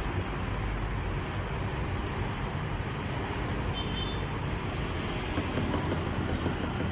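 Steady low rumble and hum of background noise, with a faint short high tone about four seconds in.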